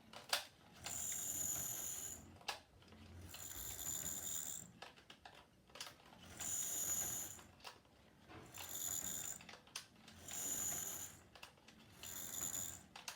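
Model railway locomotive running on track, giving a high metallic ringing that sounds like a triangle. It comes in about six bursts roughly two seconds apart, with a few sharp clicks between them.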